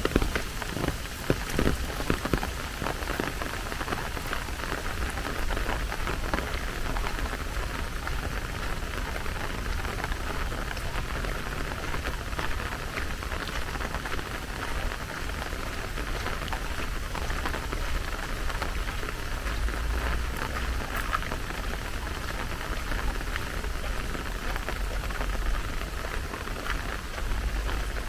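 Steady rain falling, an even hiss of drops, with a few sharper drop hits in the first couple of seconds.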